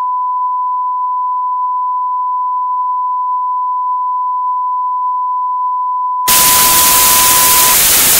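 A steady, unbroken test tone of the kind played with television colour bars. About six seconds in, loud television static hiss comes in over it, and the tone fades out under the hiss shortly after.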